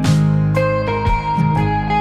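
Guitar music, with new notes or chords struck every half second to second.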